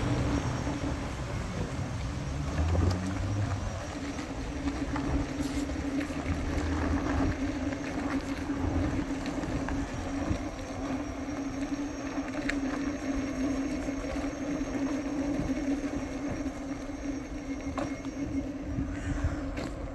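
Electric ride-on board travelling along a paved path: a steady motor hum over the low rumble of wheels rolling on asphalt.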